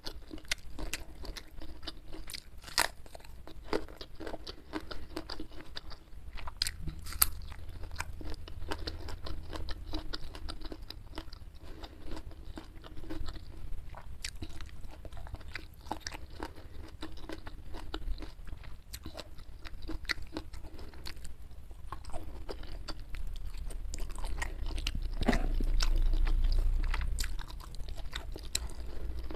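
Close-miked chewing with frequent crisp crunches and bites of a mouthful of raw vegetables and petai beans with rice, eaten with the hands. The chewing grows louder and fuller for a couple of seconds near the end.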